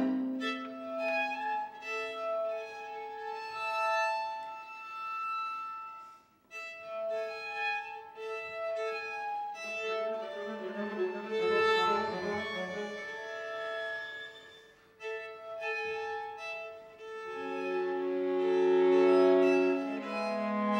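String quartet of two violins, viola and cello playing contemporary concert music: short held bowed notes passed between the instruments, stopping briefly twice, with lower notes coming in near the end.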